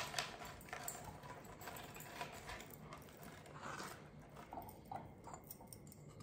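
Faint handling sounds: a plastic zip-top bag rustling and small ornaments clicking as they are set down among faux greenery, with a sharper click at the very start.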